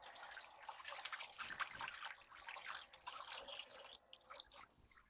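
Water running from a kitchen tap into a sink, faint and splashing, for about four seconds before it stops, followed by a few small clicks.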